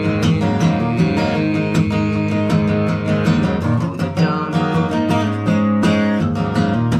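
Acoustic guitar strummed in a steady rhythm, chords ringing on between strokes.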